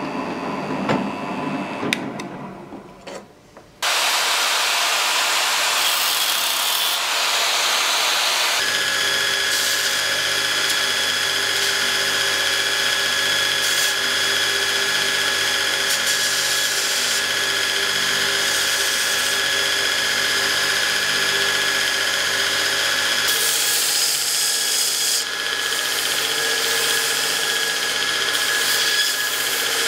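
A drill press drills into a small metal plate and winds down over the first few seconds. From about four seconds in, a belt grinder runs loud and steady, with a high whine, as a small metal part is ground against the belt.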